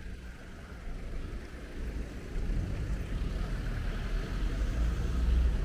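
A road vehicle passing close by, its engine and tyre noise as a low rumble that swells from about halfway through and is loudest near the end.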